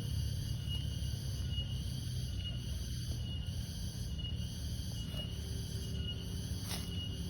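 Wild crickets trilling, heard as a steady high-pitched tone, over a continuous low rumble, with a sharp click near the end.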